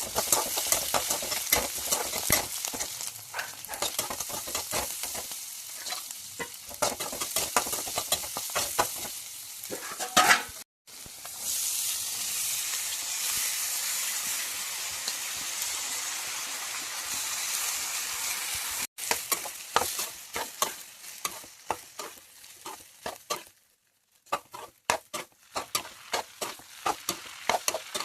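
Food frying in oil in a pan, a steady sizzle, while a spatula stirs and scrapes against the pan in quick, irregular clicks. In the middle the sizzling goes on smoothly with little stirring, and the sound cuts out briefly a few times.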